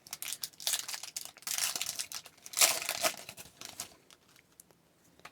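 Foil wrapper of a hockey card pack crinkling and tearing as it is opened by hand, in a run of rustles over about four seconds, loudest in the middle.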